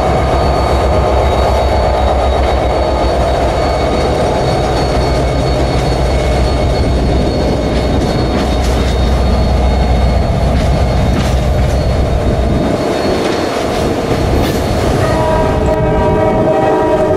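Diesel-hauled commuter train running with a heavy low rumble that drops away about twelve to thirteen seconds in. Near the end a train horn sounds, held for a couple of seconds.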